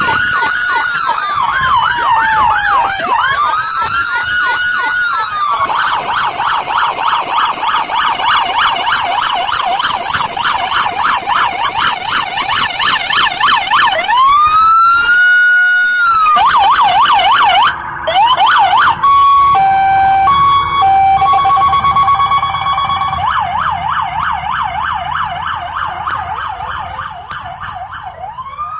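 Police patrol car sirens sounding as the cars pass: long rising-and-falling wails switch to rapid yelps and back, with a two-tone hi-lo pattern for a few seconds past the middle, and the sound fades near the end.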